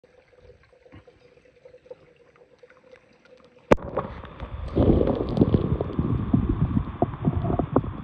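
Faint stream water at first. A little over halfway through there is a sharp knock, and then loud, muffled underwater gurgling with many small clicks, heard through a phone held under the surface of the stream.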